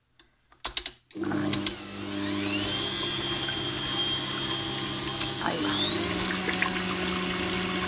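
Electric stand mixer switched on about a second in after a few clicks: its motor whine climbs as it comes up to speed, holds steady, then climbs to a higher steady pitch about five and a half seconds in, beating a runny mix of eggs, orange juice and oil.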